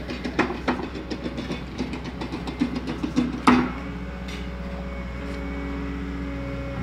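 Sherco 125 ST Factory trials bike's two-stroke engine idling, with a run of uneven sharp knocks and pops for the first three and a half seconds, then settling to a steady idle.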